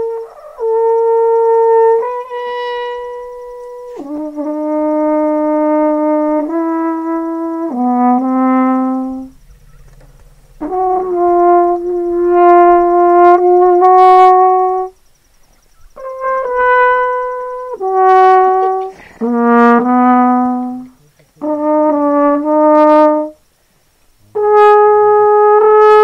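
Background music: a slow melody of held notes on a brass instrument, played in short phrases with brief pauses between them.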